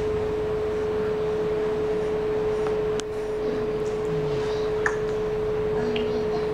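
A steady hum at a single pitch, held throughout over low room noise, with a faint click about three seconds in.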